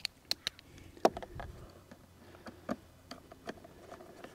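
Scattered, irregular small clicks and light knocks of a screw and plastic trim being fitted back into a front bumper's fog light opening by hand, the sharpest knock about a second in.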